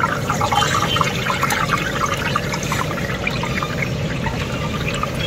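Mirchi bajji, batter-coated green chillies, deep-frying in a large kadai of hot oil: a steady sizzle with dense, fine crackling.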